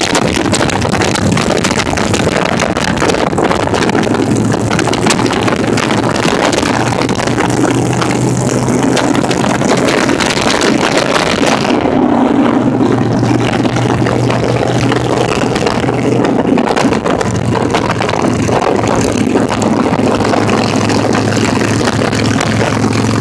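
Motorcycle engine running steadily at road speed, with wind rushing over the phone's microphone.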